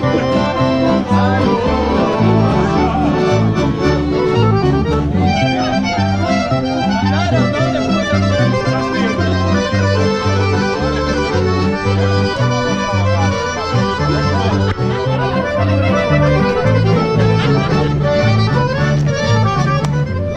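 Accordion-led instrumental music with a rhythmic bass line, playing continuously.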